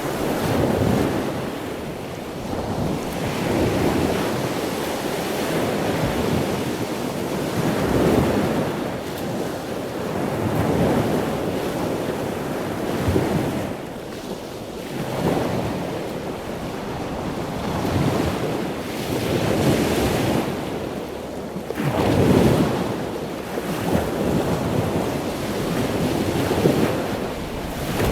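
Ocean waves surging and washing in, swelling and falling back every few seconds.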